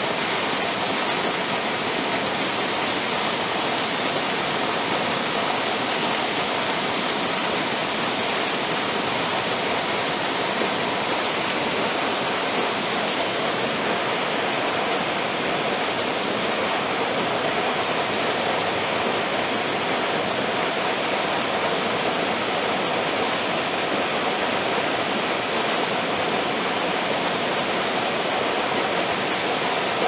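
Curtis Falls waterfall pouring steadily: an even, unbroken rush of water.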